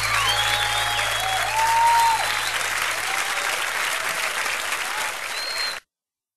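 Audience applauding, with scattered shouts and whoops from the crowd and a low held note of the music fading out underneath. The applause cuts off abruptly near the end.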